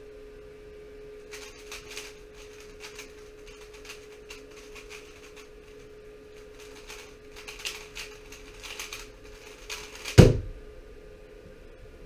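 Rubik's cube being turned fast in the hands, with rapid runs of plastic clicking and clacking from the layer turns. About ten seconds in comes one loud thump as the cube is put down on the desk mat. A faint steady hum lies under it all.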